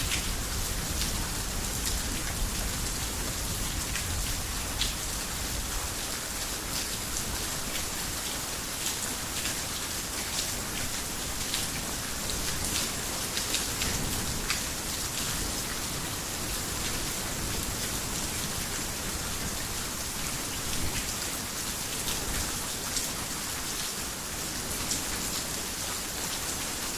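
Heavy rain on a roof: a steady hiss with the ticks of single drops. A low rumble of distant thunder fades out over the first few seconds.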